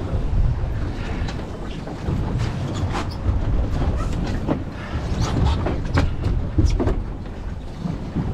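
Steady low rumble of wind and waves around a boat at sea, with scattered sharp clicks and knocks at irregular spacing.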